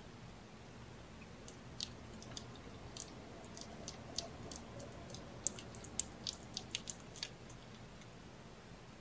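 A kitten suckling at its mother cat, making a run of small wet clicks and smacks that come thickest about five to seven seconds in.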